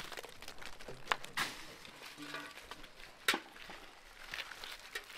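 Walnuts in their shells clicking against each other and dry leaves and gravel rustling as gloved hands gather them up, with a few sharp clicks; the loudest comes just after three seconds in.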